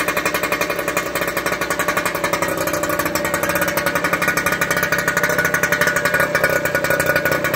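Lambretta LI scooter's single-cylinder two-stroke engine running steadily, a rapid even pulsing from the exhaust.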